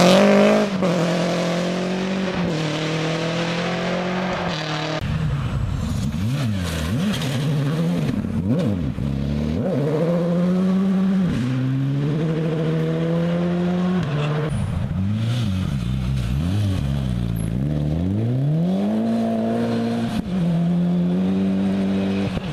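Rally car engines revving hard on a gravel stage, climbing in pitch and dropping sharply again and again as the drivers shift through the gears. At the start a car pulls away with a hiss of thrown gravel.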